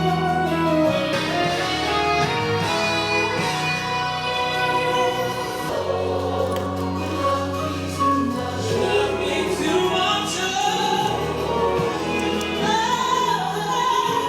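Gospel music with a choir singing over sustained bass notes.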